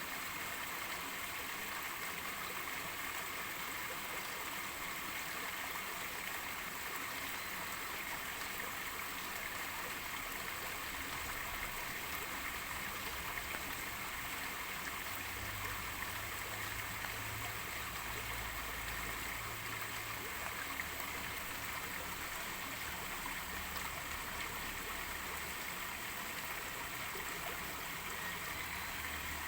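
Steady rain falling, an even hiss of water with no break, and a faint low rumble through the middle.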